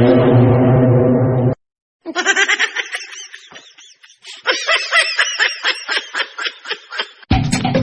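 A person giggling in quick, high-pitched repeated laughs for about five seconds, starting about two seconds in. Before it there is a short loud steady hum, and music starts near the end.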